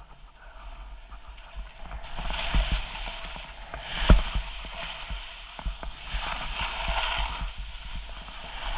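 Skis hissing and scraping over snow on a steep descent, over a low rumble, with several sharp knocks, the loudest about four seconds in.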